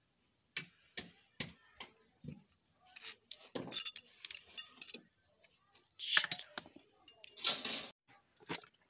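Metal clinks and knocks of a threaded swingarm-bush puller and a spanner being handled, irregular, with a few louder clanks and a short rustle near the end. A steady high-pitched insect chirr runs behind.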